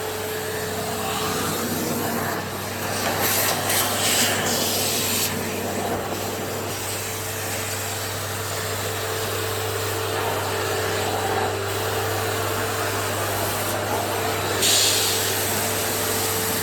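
Hoover HushTone commercial vacuum running steadily with its edging tool on an extension pipe, sucking along the floor edges: a steady motor hum under rushing air. The hiss of the air grows louder about three seconds in and again near the end.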